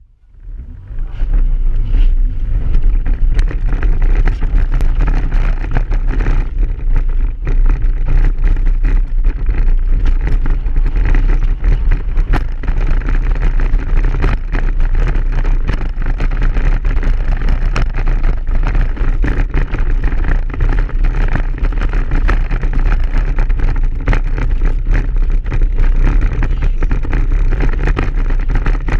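Inside a Subaru's cabin during a rallycross run on rough snow: the engine is running under a heavy low rumble, with frequent sharp knocks and rattles as the car jolts over bumps. The sound fades in about a second in.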